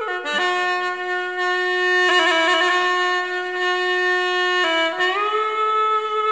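Background music: a solo woodwind playing a slow melody of long held notes, with a quick trill about two seconds in and a note sliding upward about five seconds in.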